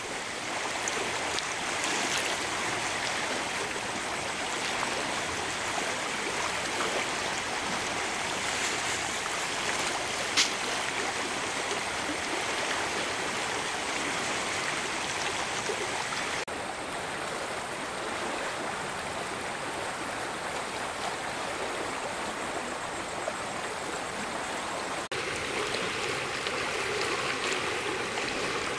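Steady rush of flowing stream water, with one sharp click about ten seconds in. The rushing changes abruptly in character twice in the second half.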